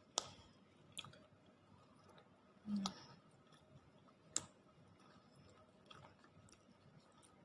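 Quiet mealtime handling noises: a few sharp clicks and taps of tableware and food packaging spread over several seconds, the sharpest about a second and about four seconds in, with a dull knock near three seconds.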